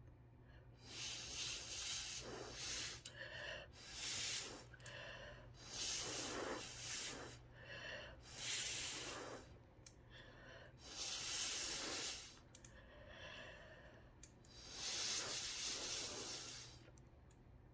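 Repeated long blows through a metal straw, about six hissing gusts of one to two seconds each with short breaths drawn in between, used to push wet epoxy resin into lacy wave patterns on a spinning glass. A steady low hum runs underneath.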